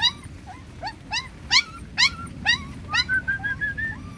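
Puppy whining in short, high-pitched yelps, about two a second, with one longer, steadier whine about three seconds in.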